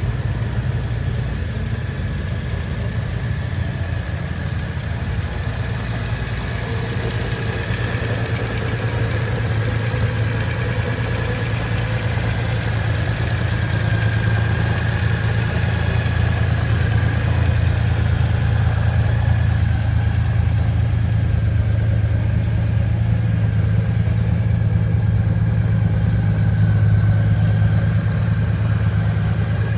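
2018 Honda Gold Wing's flat-six engine idling steadily.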